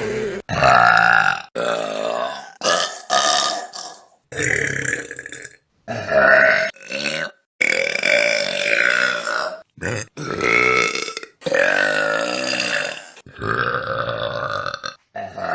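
Loud human burps, about a dozen in quick succession from different people, some long and drawn out, others short, separated by brief gaps.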